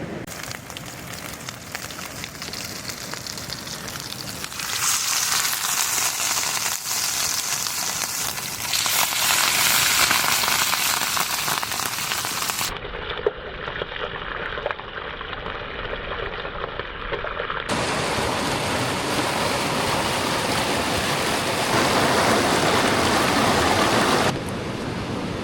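Trout frying in a pan over a campfire: a steady sizzle. It shifts abruptly in loudness and tone several times.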